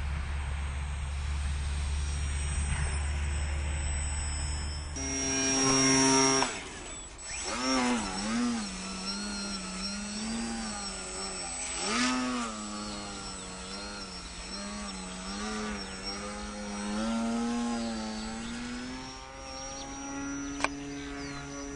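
Electric RC aerobatic model plane (Multiplex Parkmaster) flying overhead, its motor and propeller whining and sliding up and down in pitch with the throttle, loudest in a surge about six seconds in and again around twelve. For the first few seconds a low steady rumble comes before it, and a single sharp click sounds near the end.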